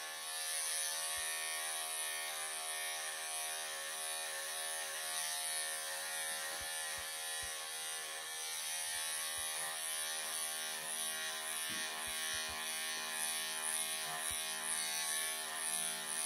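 Wahl professional electric pet clippers buzzing steadily as they shave through a Persian cat's long, thick coat.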